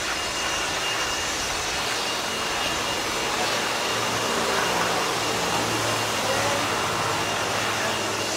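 Steady street noise with a thin, steady high whine. About halfway through, the low hum of a crane truck's engine running comes in.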